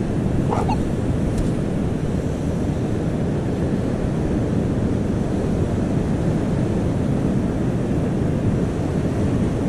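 Wind buffeting the microphone, with surf breaking behind it: a steady low rushing noise with no break.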